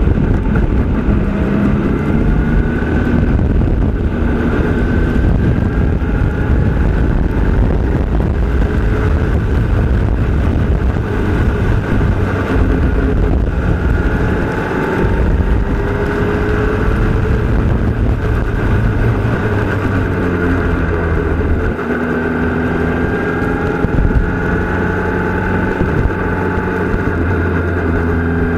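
Formula Renault 2.0 racing car's two-litre four-cylinder engine heard onboard at speed. Its pitch climbs again and again as it pulls through the gears, and it drops off briefly about halfway through and again about three-quarters of the way in.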